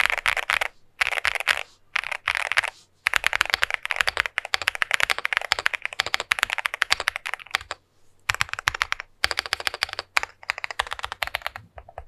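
Typing on a MonsGeek M1 V3 mechanical keyboard with AKKO V3 Piano Pro switches: fast runs of key clicks in several bursts, broken by short pauses.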